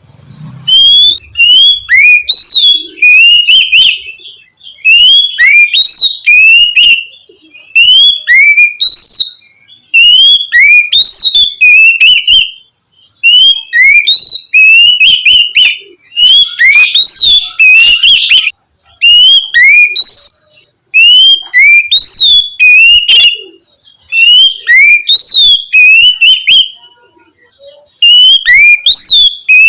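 Oriental magpie-robin (kacer) singing loud, clear whistled phrases of quick rising and falling notes. The phrases last a second or two each, with short pauses between them.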